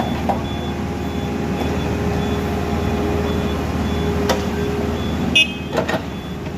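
Caterpillar backhoe loader's diesel engine running steadily, with a faint high beep repeating and a few sharp knocks in the second half.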